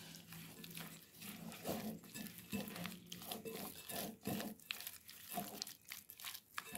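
A bare hand mixing raw chicken pieces with egg, cornflour, rice flour and spices in a bowl, giving an irregular run of short wet squelches and slaps as the marinade is worked in.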